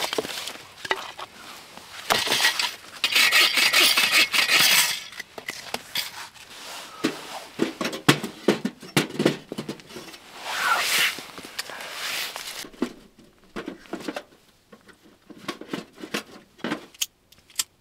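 Kindling being handled, snapped and pushed into a small metal tent wood stove. There are irregular crackles, rustles and clicks, with two longer, louder stretches of crackling, and the stove's metal door and parts knock and clink.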